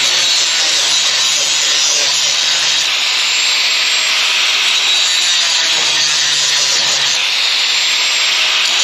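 Angle grinder grinding steel, a steady high whine with the pitch rising briefly twice as the load on the disc eases.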